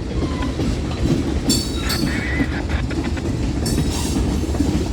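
Manifest freight train rolling past: a steady rumble and clatter of wheels on the rails, with brief high-pitched wheel squeals about one and a half seconds in and again near four seconds.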